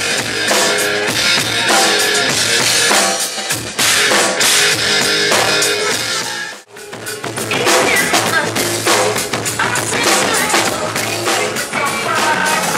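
Loud dance music with a drum kit playing along: kick drum, snare and rimshot hits over the DJ's track. About halfway it cuts out for a split second, then comes straight back in.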